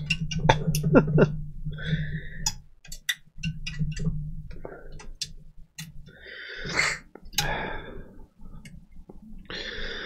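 Irregular small metal clicks and scrapes as the bent shielding of a damaged laptop headphone jack is picked and pried at, with a short breathy exhale about seven seconds in.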